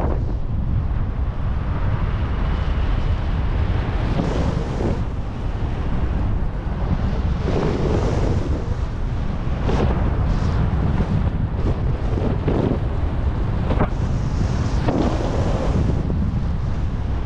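Wind buffeting the microphone in flight: a steady low rumble with several brief louder gusts.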